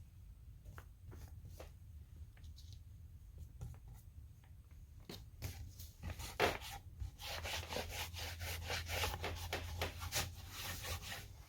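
Cloth wiping and rubbing over a painted wooden piece: a few scattered strokes at first, then quicker, louder back-and-forth rubbing from about halfway through.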